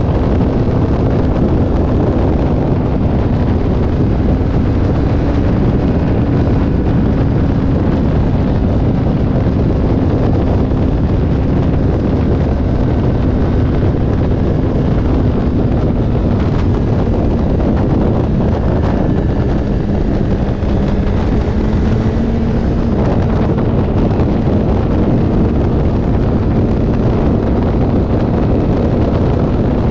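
Wind buffeting the microphone of a camera mounted on a sport motorcycle riding at speed, with the engine's steady drone underneath; its note dips slightly about two-thirds of the way through and then climbs back.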